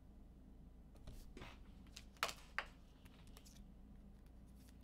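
Faint handling of trading cards: a soft swish about a second in, then two sharp clicks a little after two seconds.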